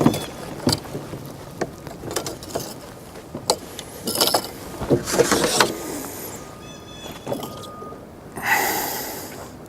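Scattered knocks, clicks and rustles of a bass and fishing gear being handled aboard a kayak, with a louder rustling burst near the end.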